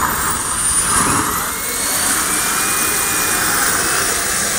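Small engines of a radio-controlled mini pulling tractor running at full power under load, a steady high-pitched whine that climbs in pitch during the first couple of seconds and then holds.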